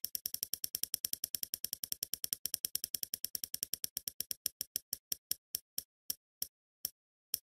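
Spinning prize-wheel ticking sound effect: rapid sharp clicks, about nine a second, that slow steadily as the wheel winds down, ending in single ticks nearly a second apart.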